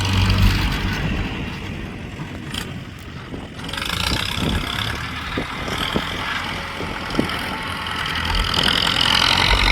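Ford 6640 tractor's diesel engine running steadily under work, with a few sharp knocks about halfway through.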